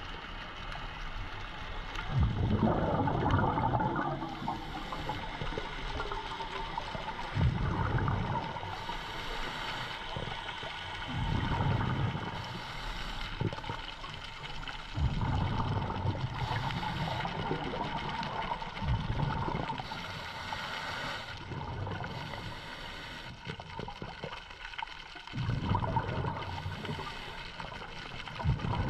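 Scuba diver breathing through a regulator underwater: exhaled bubbles gurgle in surges every few seconds, with a steady hiss between them.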